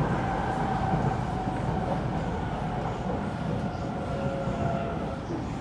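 Kawasaki C751B MRT train running, heard from inside the carriage: a steady rumble from the wheels and running gear, with a motor whine that slowly falls in pitch.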